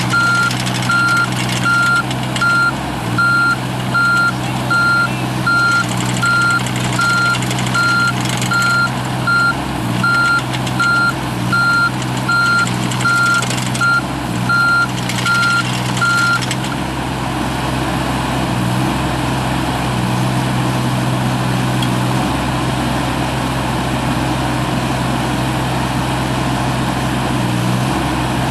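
John Deere 17D mini excavator's diesel engine running steadily while its warning alarm beeps about once a second. The beeping stops about two thirds of the way through, and the engine keeps running with small changes in its note.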